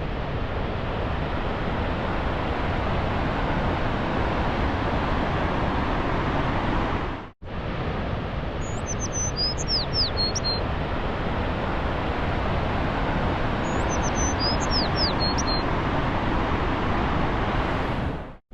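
Steady rushing roar of the Lower Falls of the Yellowstone River. A small bird chirps twice over it, each time a quick run of high, falling notes. The roar drops out for an instant about seven seconds in.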